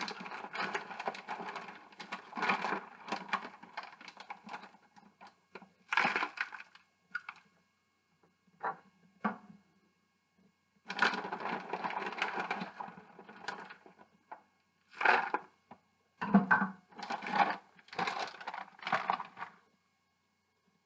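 Chopped spinach being handled and added to the dish: irregular bursts of crackling, crunching rustle, with short pauses between them.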